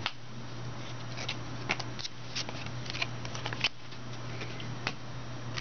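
Football trading cards being handled: scattered light clicks and brief scrapes as cards are slid and set down, over a steady low hum.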